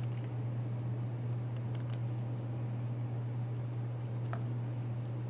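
A few faint, light clicks and rustles as a cylinder base gasket is slid down over the studs onto a two-stroke engine's crankcase, over a steady low hum.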